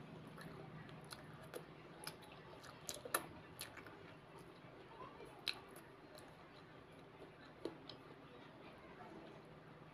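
Fingers picking meat off a chicken drumstick and scraping a paper plate: scattered soft clicks and light taps, the sharpest about three seconds in, over a faint steady hum.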